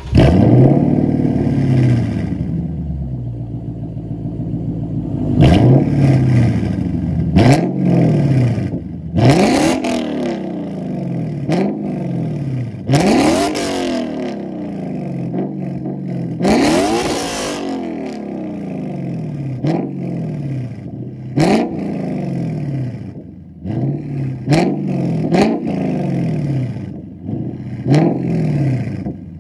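A 2018 Lexus LC 500's 5.0-litre naturally aspirated V8, fitted with a custom aftermarket exhaust, starts with a loud flare that settles to idle. It is then revved repeatedly in short throttle blips, with two longer, higher revs in the middle.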